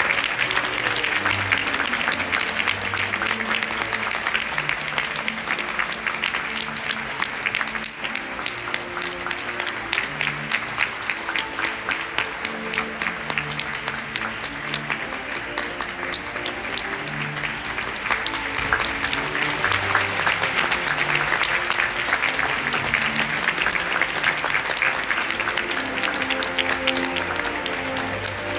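A large theatre audience applauding steadily, a dense continuous clapping, while orchestral music plays underneath.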